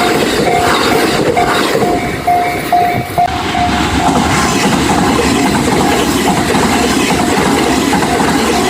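Japanese level-crossing alarm bell dinging in a steady repeating rhythm while a train runs past over the crossing. The bell grows fainter under the train noise about three seconds in.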